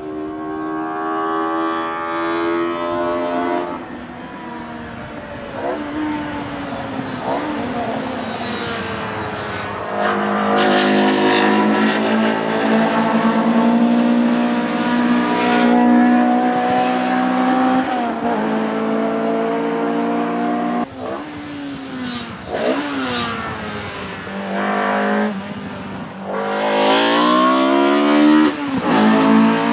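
Mercedes 190E Evolution II DTM race car's four-cylinder racing engine at full throttle on a circuit, revving up through the gears and passing by. Its pitch climbs near the start and again near the end, holds high in the middle, and drops and rises sharply a few times.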